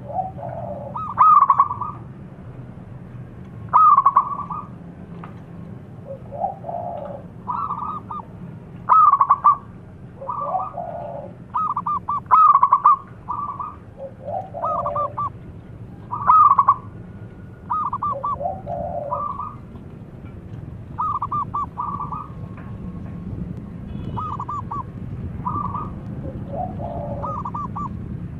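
Zebra dove (perkutut) cooing: short phrases of quick staccato notes repeated every second or two, with lower-pitched phrases between them.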